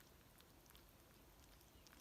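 Near silence with a few faint, sharp clicks of a kitten chewing its food.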